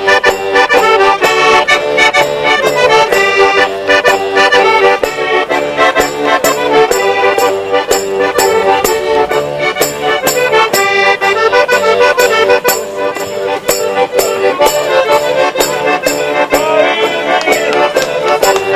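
Accordion playing a lively traditional folk dance tune, with a steady beat underneath.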